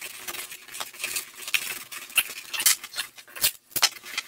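Knife cutting into a corrugated cardboard box, heard as a run of irregular scratchy, crackling strokes.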